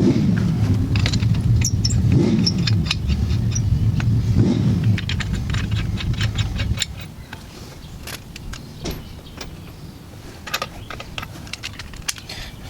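A car engine revving repeatedly, three swells about two seconds apart, which cuts off about seven seconds in. After it, light metallic clinks and ticks.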